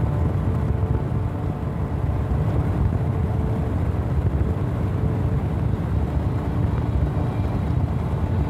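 Steady low rumble of a car driving along a city street, heard from inside the moving car.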